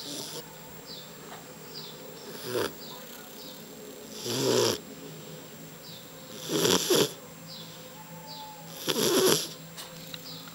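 Shar-pei dog snoring: four snores about two seconds apart, each about half a second long, the first softer than the rest.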